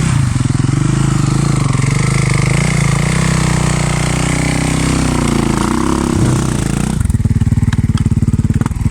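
Suzuki 450 dirt bike's single-cylinder four-stroke engine revved up and down, then settling to a steady idle about seven seconds in.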